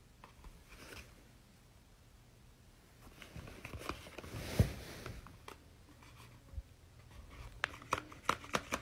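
Quiet handling of a paper dragon puppet worn on a gloved hand: paper and fabric rustling with light clicks, starting about three seconds in, with the sharpest click midway.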